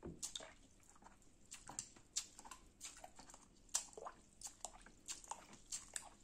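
Aquarium filter foam sponge squeezed repeatedly by hand under water in a basin, with faint, irregular squelches and little splashes about two a second, as the dirt is pressed out of it.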